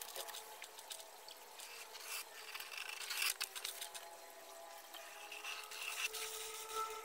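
Pencil scratching across plywood along a steel ruler in a series of short strokes, with the ruler rubbing and sliding on the board as the cutting lines are marked out.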